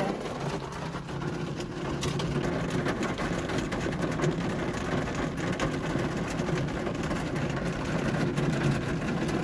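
Car engine idling steadily, heard from inside the car, with a steady hiss of heavy rain over it.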